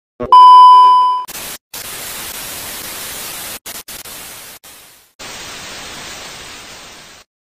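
A loud steady beep lasting about a second, followed by static hiss like a detuned TV that cuts out and comes back a few times before stopping abruptly.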